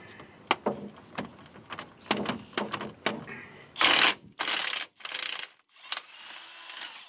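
Cordless impact driver hammering on an 18 mm wheel hub bolt in three short, loud bursts, then a longer, quieter run near the end. Metal clicks and knocks come before the bursts.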